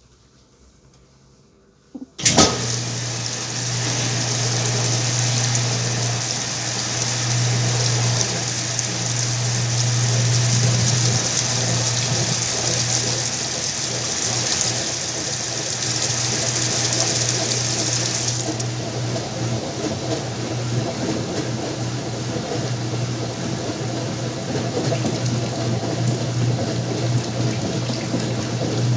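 Whirlpool washing machine filling with water. About two seconds in, the inlet valve clicks open and water rushes into the tub with a steady hiss over a low hum. Near two-thirds of the way through, the higher hiss drops away while the water flow and hum go on.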